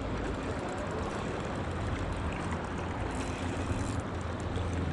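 Steady rushing of river water, with a low rumble under it.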